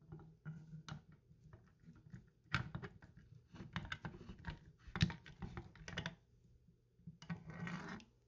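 A long screwdriver turning the stock bolt home inside the wooden butt of an SMLE Mk III* rifle: a run of irregular metallic clicks and short scrapes, with a brief scraping rasp near the end.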